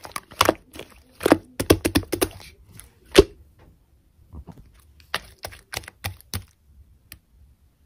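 Pink slime being squeezed and stretched by hand, making irregular sharp clicks and pops of trapped air. The pops come thick in the first three seconds, with the loudest about three seconds in, then grow sparser.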